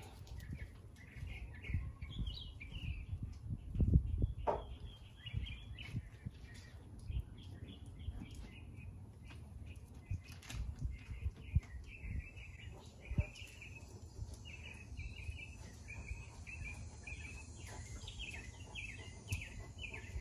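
Small birds chirping in quick runs of short notes, busiest near the end, over wind buffeting the microphone, with a low thump about four seconds in.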